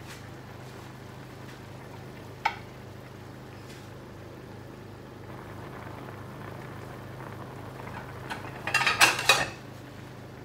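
Fish simmering in a brown sauce in a pan on a gas hob, a soft steady bubbling sizzle over a low hum. A sharp click about two and a half seconds in, and a loud crackling burst lasting under a second near the end.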